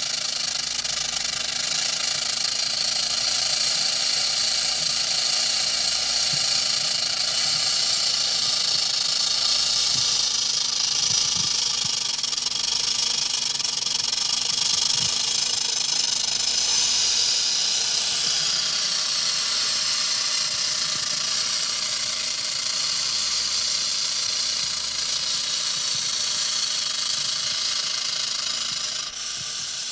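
Rattlesnake rattling its tail: a steady, continuous dry buzz that eases slightly near the end.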